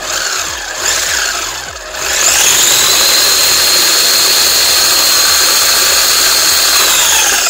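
Electric motor and drivetrain of a 1/14-scale Rlaarlo RC monster truck run from the remote: a few short throttle blips, then it spins up about two seconds in to a steady high whine, which winds down near the end.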